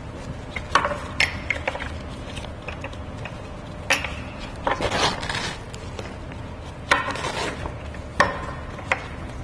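Straps and fasteners of a fire engine's vinyl hose bed cover being undone and the cover handled: a string of sharp clicks and knocks, with a few longer rustling scrapes of the cover material.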